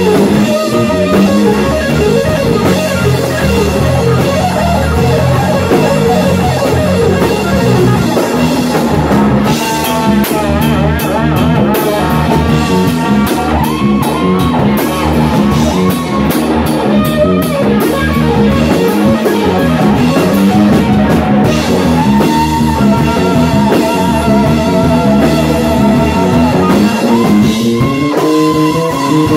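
Live rock band: a Stratocaster-style electric guitar solos over bass and drums, with long held notes that waver in pitch. A stretch of heavy cymbal work starts about a third of the way in and drops out about two-thirds through.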